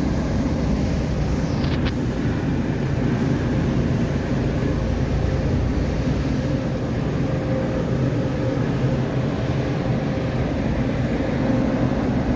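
Automatic car wash equipment running outside the car, heard from inside the cabin as a steady rushing noise with a low rumble.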